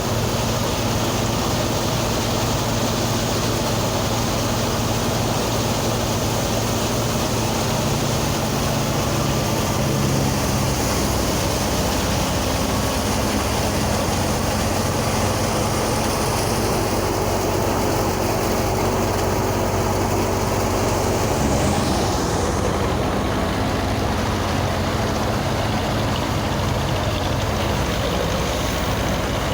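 Engine of a harvesting machine running steadily, with a change in its pitch pattern about twenty-one seconds in.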